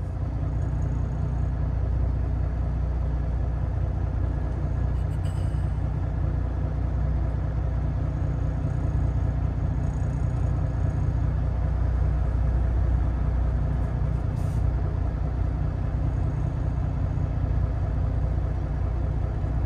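Inside the cab of a 2024 Kenworth T680 semi truck while driving: a steady low engine rumble with road noise.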